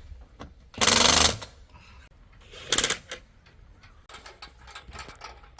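Two short bursts of a power tool, such as a drill or impact driver, about a second in and again near three seconds, followed by scattered light knocks and clicks.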